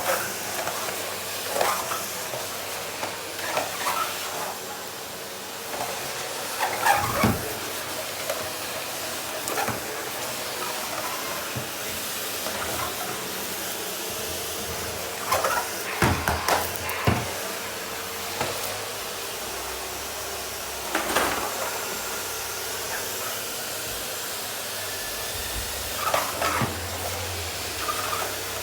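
Rowenta vacuum cleaner running steadily with an even motor hum and hiss of sucked air while vacuuming a floor, with a few short knocks and clatters.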